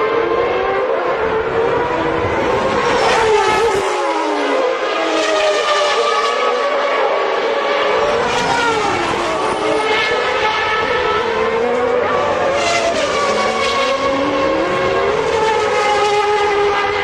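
Several 1992 Formula One cars' high-revving engines racing past at once. Their shrill notes rise and fall in pitch and cross one another, with no break in the noise.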